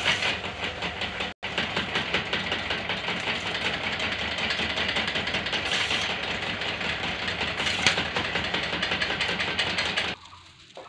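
Bamboo broom-stick making machine running: its electric motor drives rubber feed rollers with a fast, even rattle as bamboo sticks are pushed through and thrown out. The sound drops out for an instant about a second and a half in and cuts off suddenly near the end.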